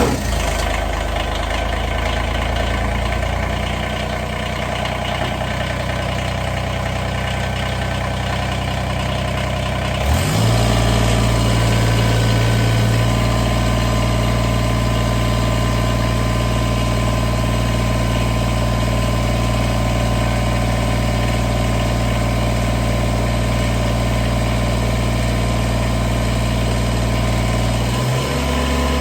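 Tractor engine idling just after starting, running steadily. About ten seconds in its speed steps up and then holds, and it shifts again near the end.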